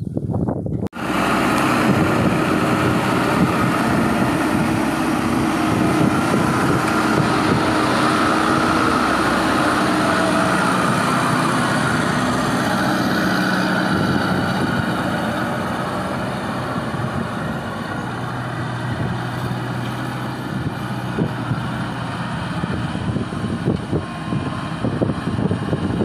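Crown Sumo tracked rice combine harvester running: its engine and threshing machinery make a loud, steady drone with a low hum. It starts abruptly about a second in and eases somewhat in the second half.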